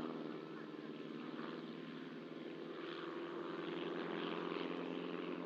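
Two Silence Twister light aerobatic aircraft flying together, their piston engines and propellers giving a steady hum whose pitch shifts slightly.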